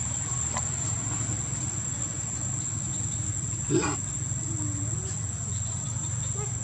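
Steady high-pitched insect drone of crickets or cicadas over a low steady rumble, with one brief louder sound a little past the middle.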